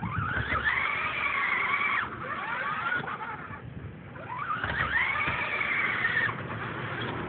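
Battery-powered radio-controlled monster truck's electric motor winding up twice to a high whine at full throttle, each held about a second and a half before cutting off.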